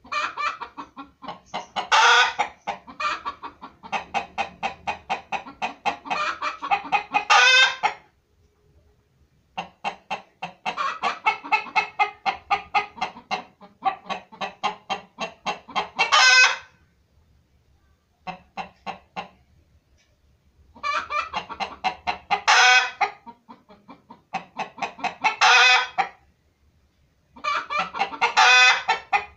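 Chicken clucking in runs of rapid clucks, about five a second. Most runs end in a louder, drawn-out call, with short pauses between the runs.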